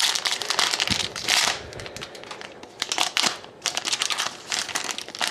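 Wrapper of a 2011-12 Upper Deck SP Authentic hockey card pack being torn open and crinkled in uneven bursts of rustling.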